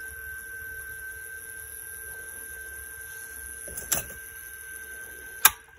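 Small battery reel-to-reel tape recorder running with a steady high-pitched tone. A click comes about four seconds in, then a sharp, louder click near the end, at which the tone stops as the machine is switched off.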